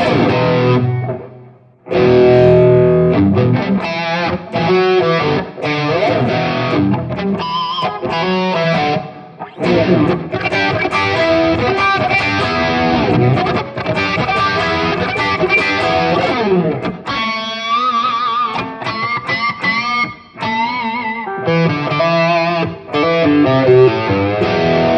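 Electric guitar played through a Headrush Prime modeler on a mid-gain overdriven classic-rock "brown sound" patch: chords, riffs and lead lines. The playing nearly stops for a moment about two seconds in, then carries on.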